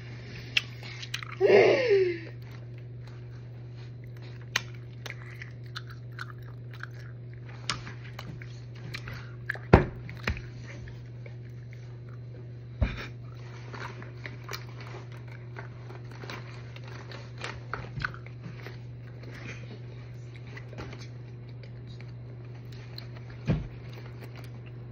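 Close-up small clicks, taps and lip-smacking mouth noises from makeup being handled and applied to the face, with a few sharper knocks. A short squeaky vocal sound comes about two seconds in, over a steady low hum.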